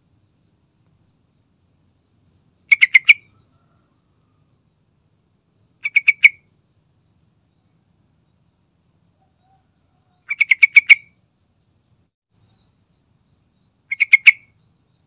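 Yellow-vented bulbul calling: four short bursts of three to six quick notes, a few seconds apart, each growing louder to its last note.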